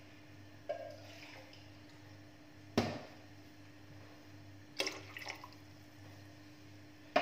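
Pot of coconut milk and water heating on a stove toward a boil, with four short sharp clicks about two seconds apart over a steady low hum; the loudest click comes about three seconds in.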